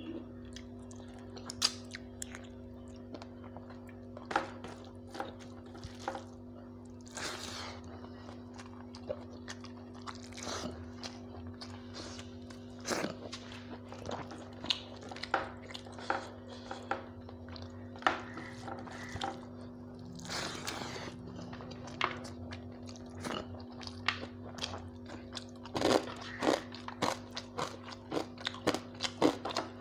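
A person eating rice by hand close to the microphone: chewing and mouth sounds with scattered sharp clicks and smacks, busier near the end, over a steady low hum.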